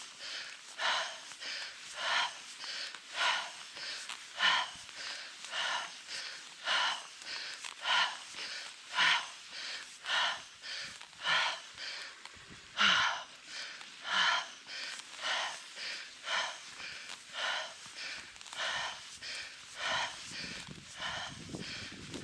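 A cyclist's heavy, rapid breathing from hard effort on a climb, about two breaths a second in a steady in-and-out rhythm. A low rumble comes in near the end.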